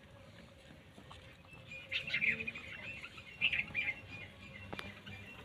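Small birds chirping in short bursts, twice, about two seconds in and again near four seconds, with a single sharp click shortly before the end.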